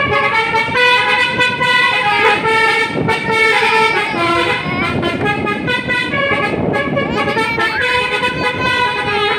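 Truck's telolet multi-tone air horn playing short tunes, its notes changing in steps, again and again, over the low rumble of the engine.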